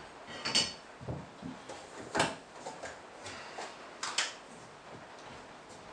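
A short metallic clink of a frying pan settling on the stovetop about half a second in, then a few scattered light knocks and clicks as containers are handled on a wooden counter.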